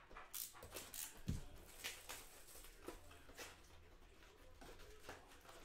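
Plastic shrink-wrap crinkling and cardboard rustling as a sealed trading-card hobby box is unwrapped and its lid opened. It comes as a series of short, scattered crackles, with a soft thump about a second in.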